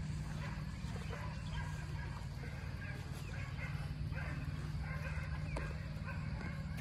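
Dogs barking and yipping faintly over a steady low rumble.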